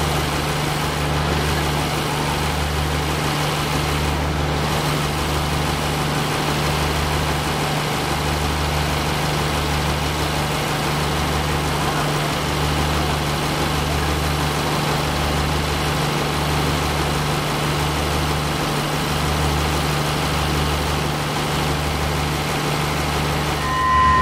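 Idling diesel engine of a stationary passenger train: a steady low hum with a deeper throb pulsing about once a second, over a murmur of passengers' voices. A steady high whistle-like tone starts at the very end.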